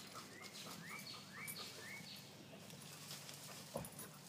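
Faint rustling and snapping of cut leafy branches as a dog pushes through them, with four short faint rising chirps in the first two seconds and a single soft knock near the end.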